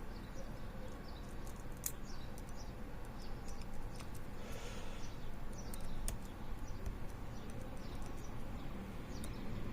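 Faint metal clicks and scrapes of a lock pick working the discs inside a disc-detainer lock, with a couple of sharper clicks about two and six seconds in, over a steady low hum.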